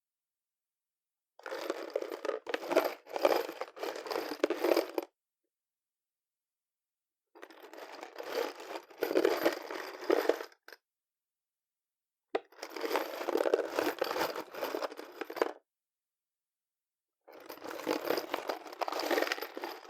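Loose screws rattling and clattering around inside a cardboard box, shaken in four separate bursts of about three seconds each.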